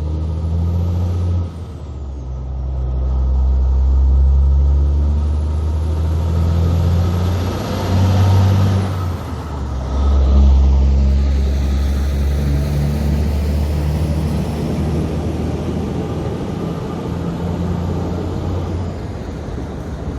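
Diesel engine of a Kenworth C509 road-train prime mover pulling away under a heavy oversize load, working up through the gears: the engine note drops and picks up again at each shift, with a faint high whistle rising over it.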